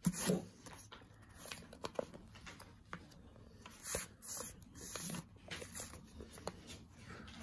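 Faint rustling and a few soft taps of a sheet of colored paper being folded and pressed flat by hand.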